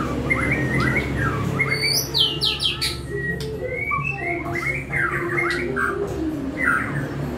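White-rumped shama (murai batu) singing: a continuous run of fast, repeated down-slurred whistled phrases with a few sharp high notes about two seconds in, over a low steady hum.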